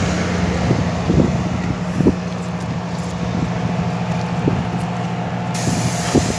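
Steady low machine hum with scattered light clicks; about five and a half seconds in, a high hiss joins it.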